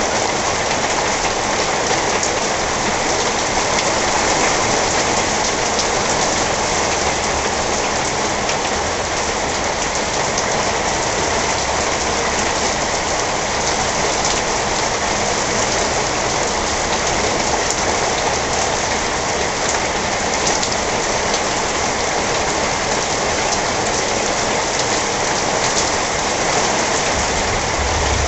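Heavy wind-driven thunderstorm rain pouring steadily, a dense, even hiss, with a low rumble near the end.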